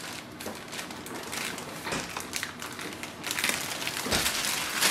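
Thin plastic packaging bag crinkling and rustling as it is pulled off a printer, growing louder over the last second and a half.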